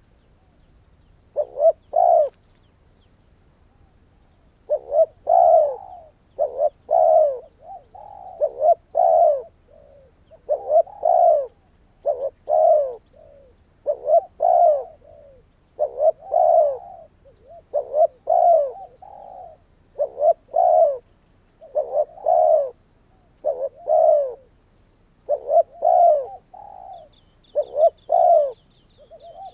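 Spotted dove, a decoy bird, cooing over and over in its repeated territorial call phrases. After a short pause near the start the phrases come about once a second. A faint high chirping ticks in near the end.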